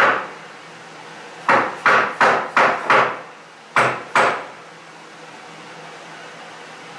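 Mallet blows on plywood cabinet panels, knocking the dry-fitted cabinet apart. One knock right at the start, a quick run of five about a second and a half in, then two more around four seconds.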